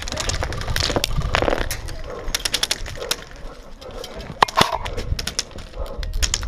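Wind buffeting a body-worn camera's microphone, with a run of sharp clicks and rattles. The clicks come in dense clusters, the thickest a little over two seconds in.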